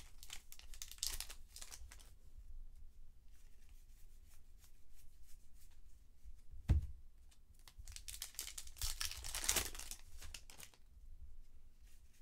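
Foil and plastic trading-card pack wrappers crinkling and tearing as packs are opened, in bursts, with one low thump a little past halfway.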